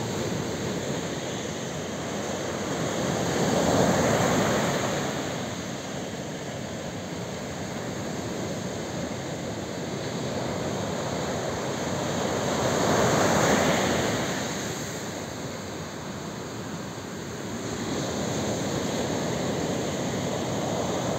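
Sea surf breaking on a beach: a steady wash of waves, with two bigger waves swelling up and fading away, about four and thirteen seconds in.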